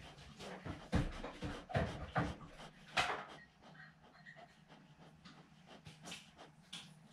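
Dishes being washed at a kitchen sink: irregular clatters and knocks, loudest in the first three seconds, then a few softer clinks near the end, over a steady low hum.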